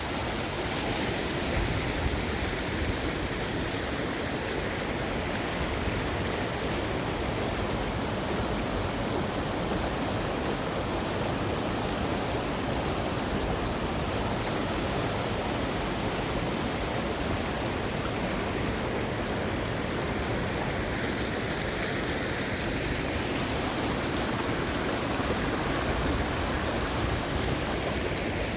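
Mountain stream rushing steadily over rocks, a continuous even wash of water noise.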